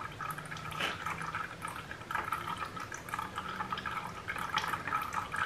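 Used engine oil trickling and dripping from a motorcycle's open drain-plug hole into a plastic drain pan during an oil change.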